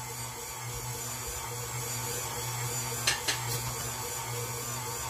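KitchenAid Artisan stand mixer running steadily as it kneads a batch of pizza dough in its steel bowl, a steady motor hum, with two short ticks about three seconds in.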